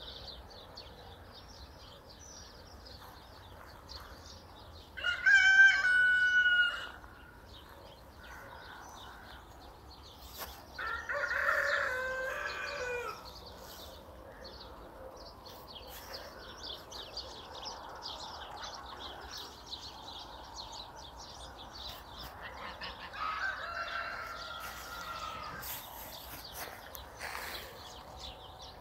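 A rooster crowing three times: a loud crow about five seconds in, another at about eleven seconds and a weaker one at about twenty-three seconds. Small birds chirp faintly in between.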